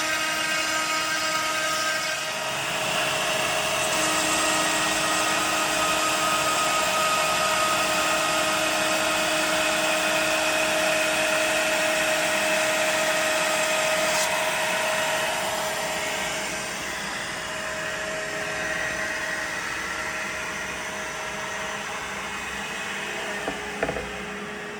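CNC router running loud, its spindle whining steadily as the bit cuts through a pre-finished shelf board to trim off the end. About two thirds of the way through, the cutting hiss thins out and the machine runs on more quietly.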